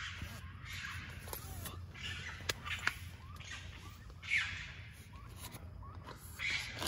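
Faint cries of several animals fighting or squabbling in the dark, in short separate bouts, one rising and falling about four seconds in, with a few sharp clicks.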